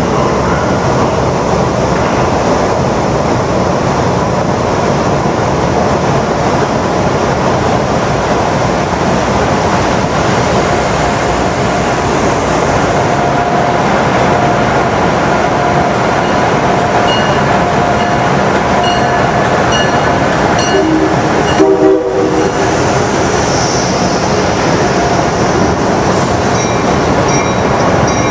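Passenger trains running through a covered station platform: a loud, steady rumble and rattle of wheels and cars, echoing under the roof. About three quarters of the way in comes a short, louder burst.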